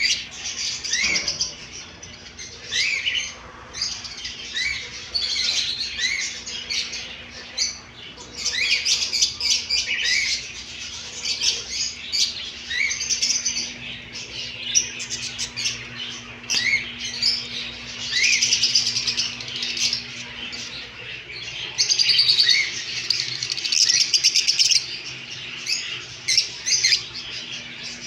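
Many small caged birds chirping and twittering together in a dense chorus, with short rising chirps repeating every second or so throughout.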